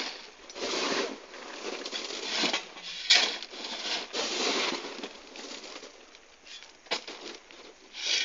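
Stone chippings crunching and scraping in irregular bursts as they are shovelled and spread by hand for a chip-and-spray road seal, with a few sharp knocks.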